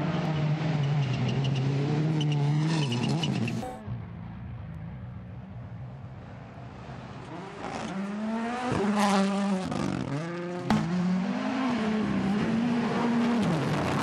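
WRC Rally1 cars' turbocharged four-cylinder engines revving hard on a gravel stage, the pitch rising and falling with throttle and gear changes as the cars pass. The sound drops to a quieter stretch about four seconds in, swells again about halfway, and a single sharp pop cracks out about three-quarters of the way through.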